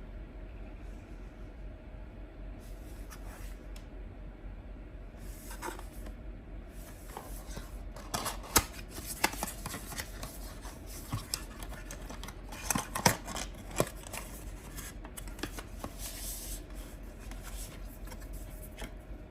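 Hands handling product packaging: rubbing and scraping, with a cluster of sharp clicks and taps in the middle.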